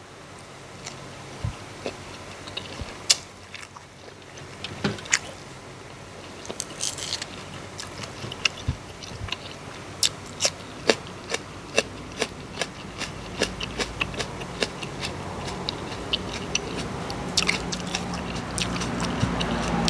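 Close-miked chewing and crunching: a person eating spicy Isan young-jackfruit salad by hand. Many sharp short crunches, coming more often from about halfway through.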